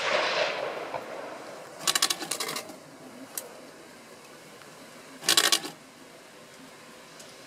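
The reverberation of a rifle shot fading away during the first second or so, then two short bursts of rapid mechanical clicking, about two seconds and five seconds in.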